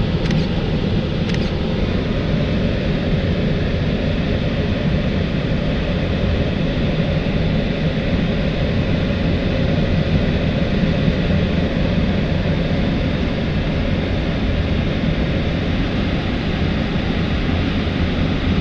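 Steady rush of airflow around the cockpit of an L-23 Blaník two-seat glider in flight, an even noise with no engine.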